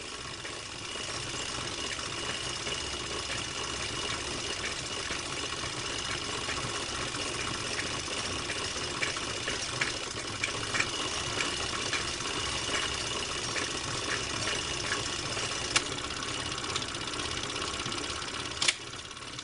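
Steady mechanical running noise with a faint high whine and scattered light clicks, and one sharper click near the end.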